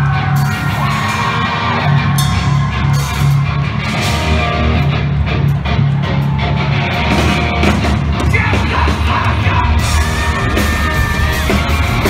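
Loud rock music with yelled and sung vocals over heavy bass, played live at a concert.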